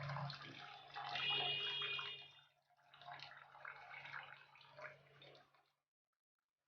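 Thin rasam liquid poured from a pan into a dish in two pours, each with some utensil clatter. A low steady hum runs underneath, and everything stops abruptly about a second before the end.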